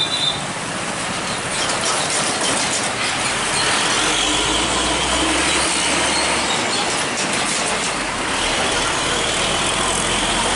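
Heavy vehicles passing close by: a steady rush of engine and road noise with some rattling, and a deeper engine rumble that swells for a couple of seconds in the middle.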